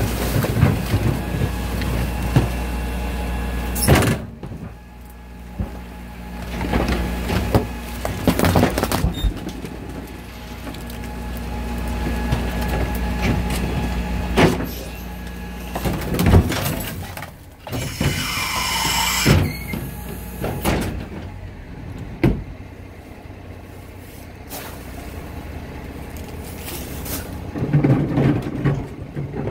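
Garbage truck compactor running on its hydraulics over the engine hum, squashing bags of dirty diapers, with sharp pops and cracks scattered through it as the Diaper Genie bags burst. A falling squeal a little past halfway, and louder clattering near the end as a fresh load drops into the hopper.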